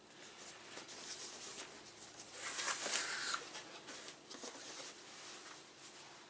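Plastic packaging crinkling and rustling as a circuit board is handled and taken out of its bag, loudest about halfway through.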